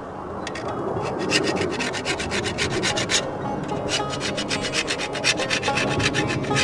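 Hand scraper drawn along the steel edge of an Austrian scythe blade in quick, rapid strokes, about eight a second. The strokes start about a second in and pause briefly just after three seconds before carrying on. This is the scraping of the second side of the edge after the first side has been sanded.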